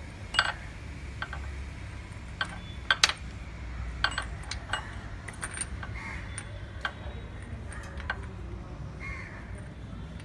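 Scattered short clicks and taps as a spark plug is threaded by hand into a Bajaj Pulsar NS200's cylinder head, with crows cawing in the background.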